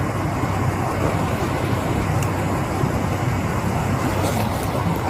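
Steady road-vehicle noise: a low engine hum under an even hiss of traffic or tyre noise.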